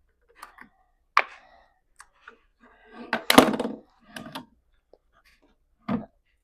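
A few scattered knocks and clicks from things being handled, the loudest a dull thump about three seconds in.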